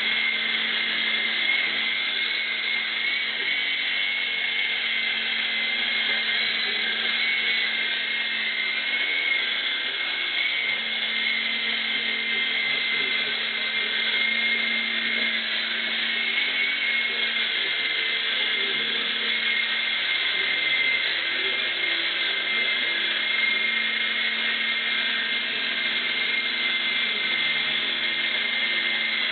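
Small electric motor and rotor blades of a three-channel indoor RC helicopter, running steadily in flight: a high whine over a lower hum, its pitch wavering slightly.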